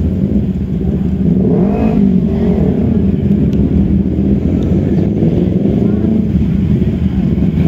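Harley-Davidson motorcycle engine running close by, loud and steady, with a brief rise and fall in pitch about two seconds in.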